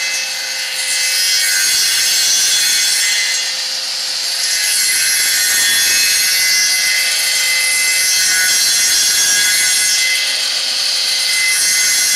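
Homemade wood copying machine's high-speed cutter disc, driven by an electric motor, cutting into a wooden blank: a steady, loud, high-pitched cutting noise that dips slightly once or twice.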